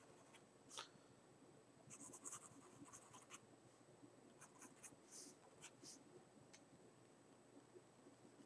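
Faint scratching of a mechanical pencil's graphite on drawing paper: short, light sketching strokes in a few clusters.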